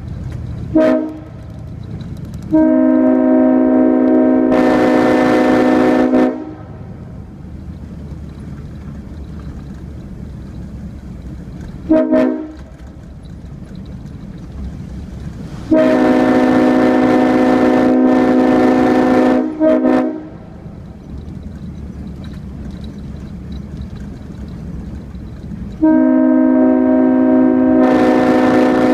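Multi-chime locomotive air horn sounding a chord in a series of honks: three long blasts of three to four seconds each, with short toots in between. A low steady rumble fills the pauses between blasts.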